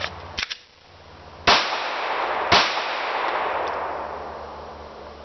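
A few light clicks as a pistol comes out of a hip holster, then two pistol shots about a second apart, each followed by a long echoing decay.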